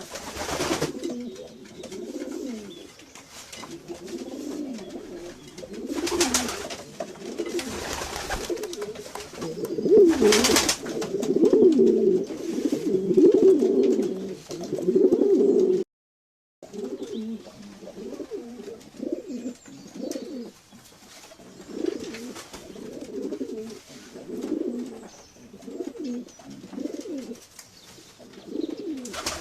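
Several domestic pigeons cooing, their low burbling calls overlapping almost without pause, thickest in the middle, with a few short sharp noises among them. The sound cuts out completely for about half a second just past the middle, then the cooing resumes.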